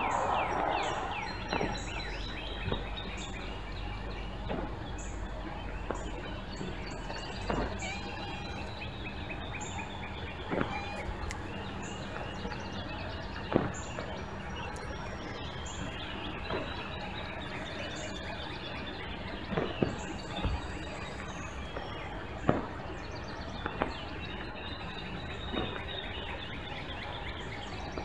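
Small birds chirping in short repeated calls over steady background noise, with sharp clicks every two to three seconds standing out as the loudest sounds.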